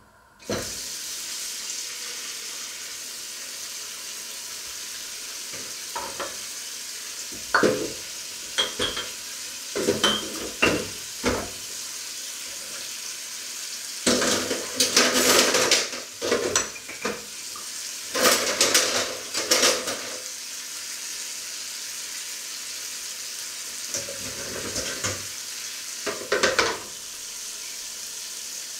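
Kitchen tap turned on about half a second in and running steadily into a stainless-steel sink, with dishes, a plate and a wooden board, clattering irregularly as they are rinsed.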